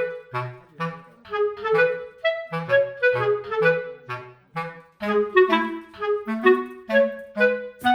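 Background music: an instrumental tune of short notes with sharp starts and quick fades, several a second, over a bass line.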